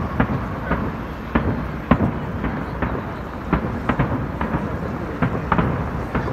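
Fireworks shells bursting high overhead: an irregular run of bangs, about one or two a second, over a steady low rumble.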